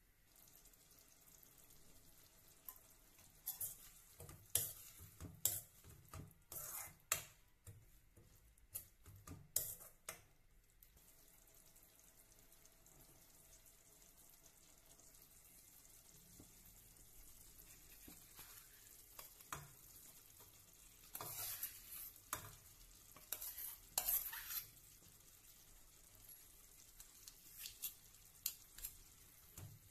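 A spatula stirring and scraping potato masala in a cooking pan, in two spells of quick strokes, over a faint sizzle of frying.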